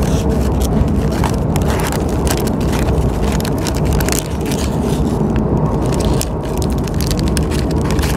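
Steady low rumble of a KTM ETS electric train running, heard from inside the carriage, overlaid by frequent short crackling and scraping noises.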